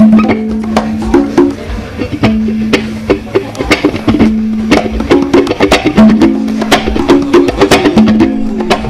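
Live band music: a set of congas slapped and tapped by hand in a quick rhythm over held low notes from an electric guitar.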